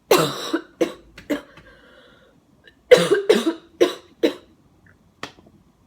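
A woman coughing in two fits: about three coughs at the start, then four or five more about three seconds in, with a faint last one near the end. It is a lingering cough from a recent bout of flu.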